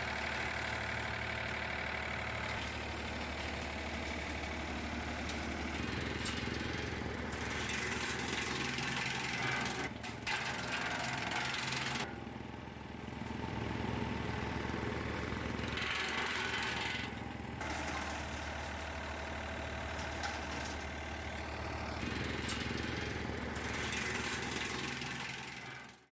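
A 1960s Ford 3000 tractor's engine running steadily while it drives a PTO-powered wood chipper. Its tone shifts several times, with louder, noisier stretches now and then.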